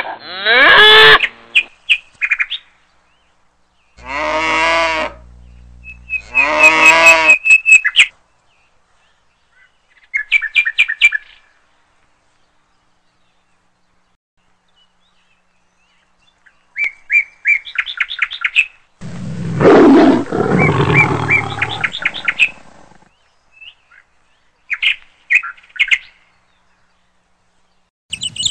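Short bursts of bird chirping alternating with loud animal calls. In the first eight seconds there are pitched calls whose pitch slides and wavers, and about twenty seconds in a rough, growling roar lasts some three seconds. Silent gaps lie between them.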